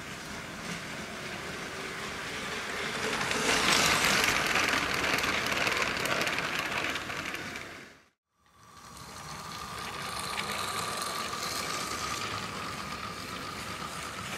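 Battery-powered Lego trains running on plastic track: motor whirring and wheels rattling along the rails, swelling as the train comes close, then cutting off about eight seconds in. A second train follows with a steady, high motor whine over the rattle of its wheels.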